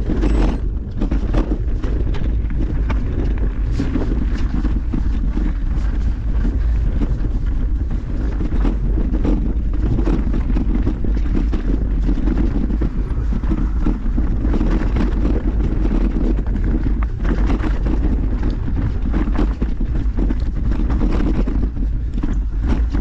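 Wind buffeting a camera microphone on a mountain bike ride: a loud, steady low rumble with frequent short knocks and rattles from the bike over rough trail.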